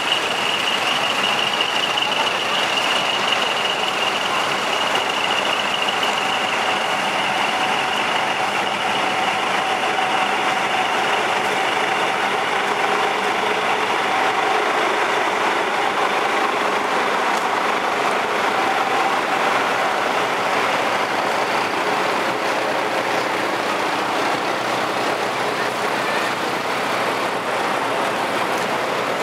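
Steady din of big diesel trucks running at idle close by. A high steady tone sits over it at first and fades out over the first several seconds.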